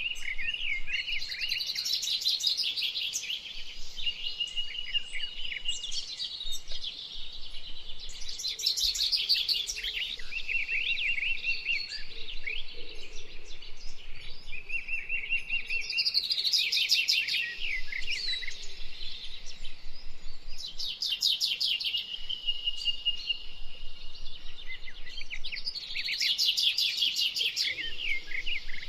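A songbird singing, repeating a phrase of rapid high trills every several seconds, with chirps and short whistled notes in between.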